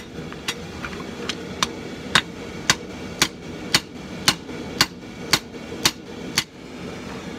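Blacksmith's hammer striking a red-hot 1084 steel bar on an anvil, drawing out the point of a knife blade: evenly paced blows about two a second, stopping about six and a half seconds in.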